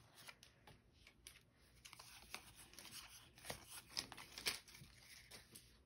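Faint rustling and scattered light clicks of a small stack of Pokémon trading cards being handled and split between the hands.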